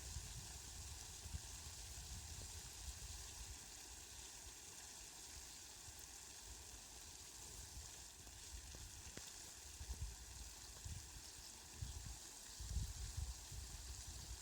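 Steady, faint hiss of falling rain, with uneven low rumbles in the second half.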